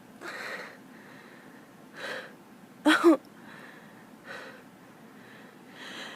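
A woman's short, breathy gasps and sniffing breaths between allergy sneezes, with a brief two-part catch of the voice about three seconds in.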